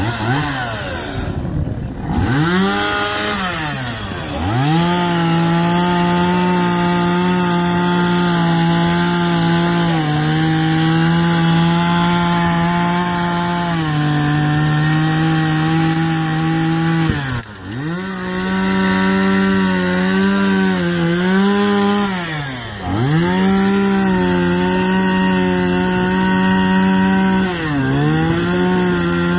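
Chainsaw running at high throttle as it carves into a standing log, its engine pitch held steady under load and dropping off briefly several times before revving back up.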